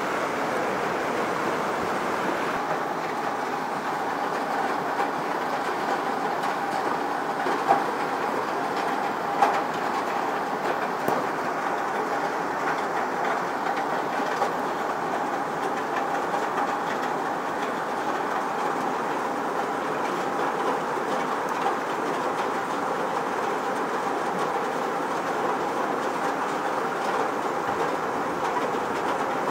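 Hail falling steadily: a dense, continuous clatter of hailstones, with a few louder single hits standing out.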